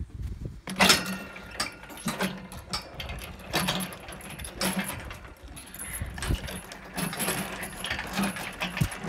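Hanging plastic handholds on a playground ninja course knocking about, their metal fittings clanking and rattling as a child swings hand over hand across them. There is a sharp clank about once a second, the first few ringing briefly.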